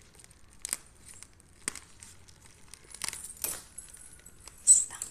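Plastic courier mailer bag crinkling and rustling in several short, crisp bursts as hands handle it and pull it open, the loudest burst near the end.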